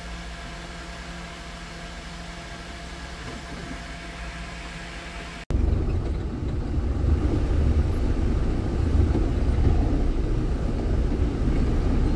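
Dump truck's diesel engine running steadily, heard from the cab. About halfway through, an abrupt cut switches to a louder, deeper rumble of the engine working.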